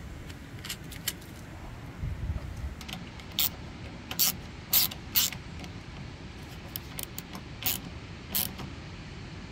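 Socket ratchet wrench clicking in short runs while tightening the carburetor mounting nuts on a small engine. The loudest runs come a few seconds in and again near the end.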